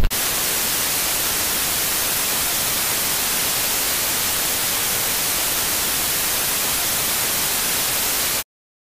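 Analog TV static: a steady hiss of white noise that cuts off suddenly near the end.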